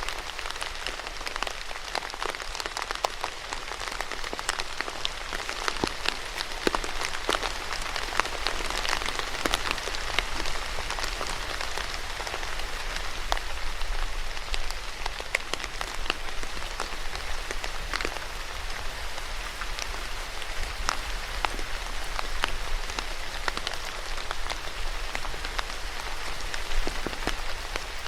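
Steady rain falling on a surface, with many separate drops ticking sharply among the even hiss.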